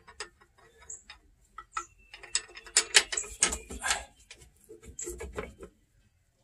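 Hand ratchet wrench clicking in quick runs, with metal clinks, as a bolt is run in. The clicks are scattered at first, come thicker and louder from about two seconds in, and stop shortly before the end.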